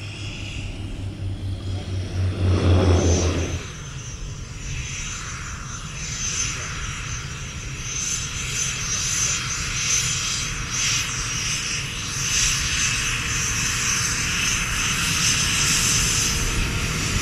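A twin-engine propeller plane taking off, with a low, steady propeller drone that cuts off sharply about three and a half seconds in. Then a BAE Hawk 100's Adour turbofan jet engine on its takeoff roll: a high whine over a rushing noise that slowly grows louder.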